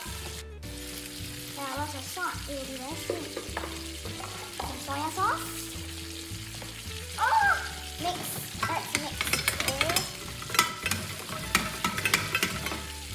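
Sizzling frying sound, added over a toy frying pan since a play pan cannot sizzle, with a tune of held and sliding notes underneath. In the second half come many quick clicks and taps of a wooden spatula against the steel pan.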